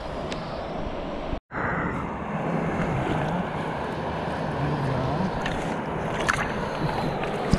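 Steady rush of a shallow, clear river running over stones, with a few light splashes near the end as a landed rainbow trout is handled in a net in the water. The sound breaks off for an instant about a second and a half in.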